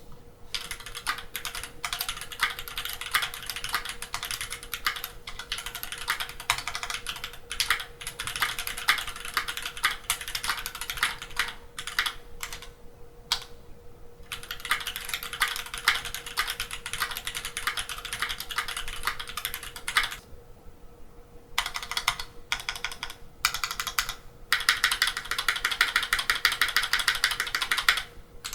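Typing on a stock Keychron Q2 mechanical keyboard with stock Gateron Black Ink v2 linear switches: runs of keystrokes broken by short pauses, with a fast, even run of strokes near the end. A faint steady hum sits underneath.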